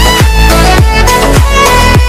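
Background electronic dance music with a steady kick-drum beat, a little under two beats a second, over a deep sustained bass and melody.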